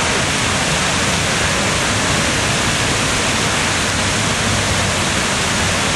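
Steady rushing hiss of a large fountain's falling and splashing water.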